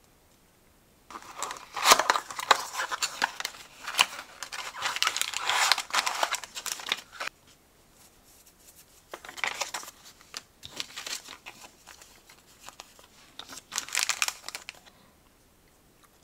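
Plastic packaging and a paper sheet crinkling and rustling as they are handled and opened by hand. A long stretch begins about a second in, followed by two shorter bursts later on.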